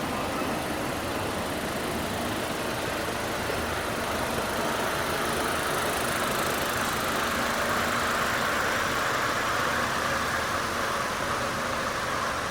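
An engine running steadily, with a rough hiss that grows a little louder partway through.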